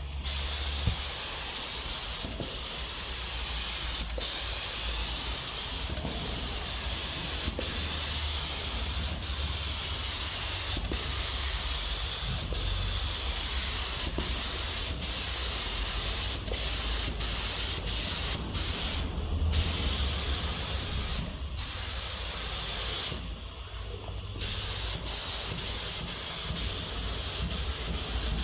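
Gravity-feed HVLP spray gun on compressed air spraying automotive paint, a steady loud hiss. It breaks off briefly a few times about two-thirds through as the trigger is released.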